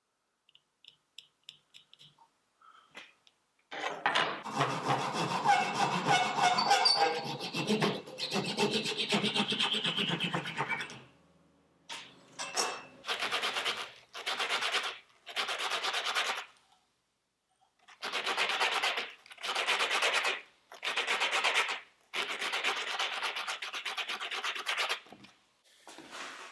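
Sandpaper rubbed by hand over a beech plywood panel: a few faint ticks, then several seconds of steady scrubbing, then a run of separate back-and-forth strokes, each about a second long.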